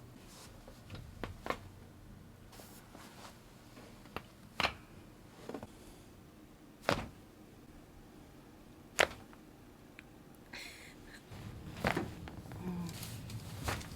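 Sharp cracks and knocks of chiropractic adjustments: about eight single short impacts spaced irregularly over several seconds, the loudest about two-thirds of the way through.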